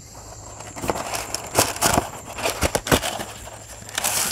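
Parchment paper crinkling and rustling as it is handled and pulled out, with sharp crackles through it, getting louder near the end.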